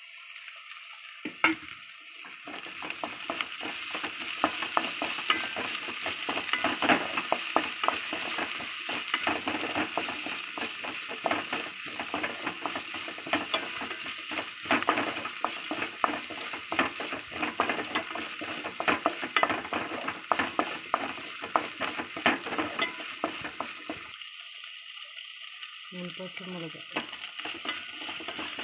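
Sliced shallots and crushed ginger-garlic paste sizzling as they fry in a metal pot, stirred with a wooden spatula that scrapes and knocks against the pot. The stirring starts about two seconds in and stops for a couple of seconds near the end while the sizzling goes on.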